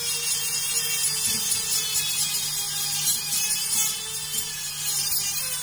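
Electric drill spinning a wire wheel brush against a sheet-steel box, a steady motor hum under the hiss of the wire bristles scouring the metal: it is stripping rust and grime from the steel.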